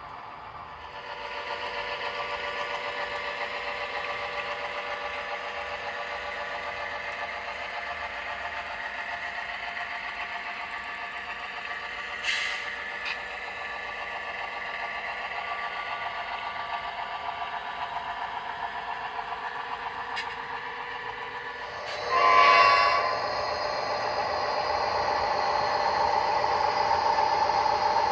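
Model diesel locomotives running with a steady engine drone. About 22 seconds in comes a short horn blast, the loudest moment; after it the engine sound is louder as the locomotives pass close.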